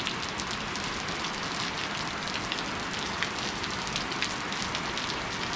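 Heavy rain pouring steadily, an even hiss dotted with the taps of individual drops.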